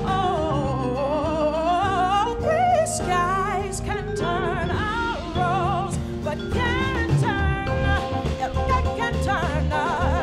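Female jazz vocalist singing with wide vibrato and quick melismatic runs, backed by a jazz combo of piano, vibraphone, electric bass and drums. The voice breaks off briefly about halfway through, then comes back in.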